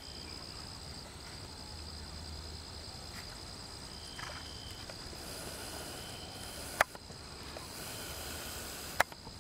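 Insects trilling steadily in a high, thin tone, with a second lower trill coming and going. Two sharp clicks stand out about two seconds apart near the end.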